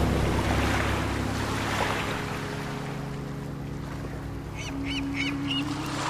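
Ocean surf washing steadily under a low held hum. A bird chirps four quick times near the end.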